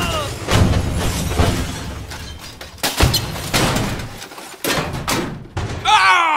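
Toy motocross bike crashing on a dirt pile during pretend play: a rushing noise with a few sharp knocks as it tumbles. Near the end comes a voice-like sound sliding down in pitch.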